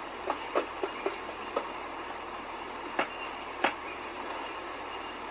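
Steady hiss of rain during a thunderstorm, with a scatter of short sharp taps in the first second and a half and two louder taps about three seconds in.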